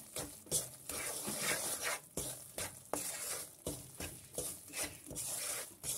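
Wooden spatula scraping and stirring semolina roasting in butter in a non-stick pan, in repeated strokes about every two-thirds of a second, with a light sizzle. The semolina has begun to release its butter, the sign that it is nearly roasted.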